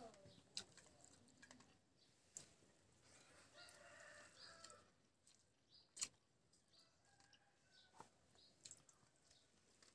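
Near silence with a faint rooster crow about three and a half seconds in, lasting about a second, and a few sharp clicks of a hand against a steel plate while mixing rice, the loudest about six seconds in.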